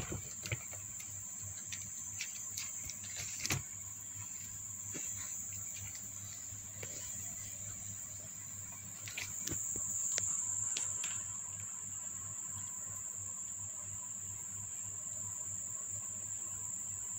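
Steady high-pitched insect trilling that grows louder around ten seconds in, with a few light knocks and scrabbles from kittens in a plastic box in the first few seconds, the sharpest about three and a half seconds in.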